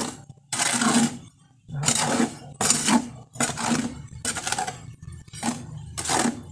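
A small metal trowel scraping and stirring a dry sand-and-cement mix in a mortar tub, in about seven strokes roughly a second apart.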